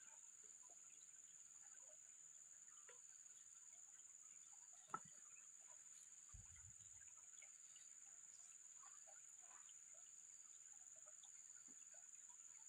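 Near silence: faint outdoor background with a steady high-pitched tone and scattered faint chirps, broken by one sharp click about five seconds in and a short low thump a moment later.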